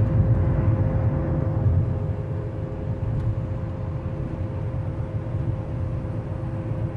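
Vehicle driving along a highway: steady low road rumble with a constant whine.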